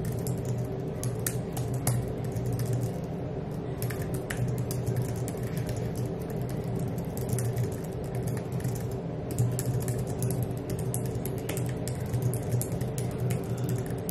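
Typing on a laptop keyboard: irregular key clicks over a steady low hum.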